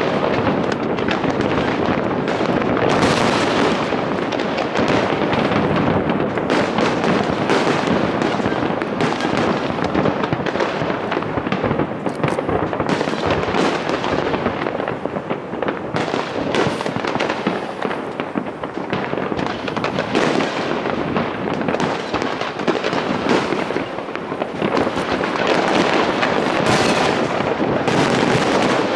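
Large aerial fireworks display: a dense, unbroken barrage of overlapping bangs and crackling bursts.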